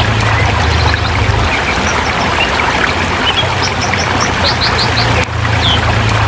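Forest river rushing steadily over rocks, with small birds chirping in quick runs of three or four notes. A low hum underneath drops out for about two seconds in the middle, then returns.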